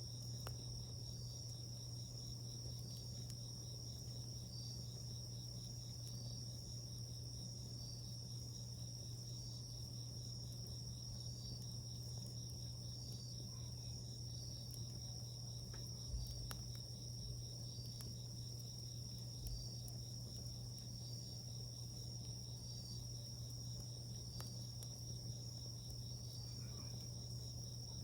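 Insects trilling steadily at a high pitch, with a regular pulse about every second and a half, over a low steady hum. A wood fire gives a few faint crackling pops, the sharpest about sixteen seconds in.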